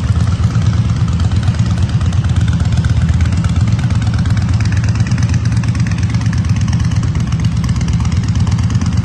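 Yamaha Bolt's air-cooled V-twin idling steadily through an aftermarket heat-wrapped exhaust, a low, even note.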